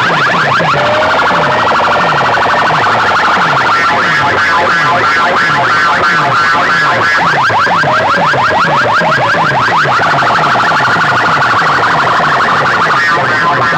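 Loud, continuous siren-like electronic effect from a DJ sound system: fast warbling sweeps repeating over a steady run of short falling bass pulses.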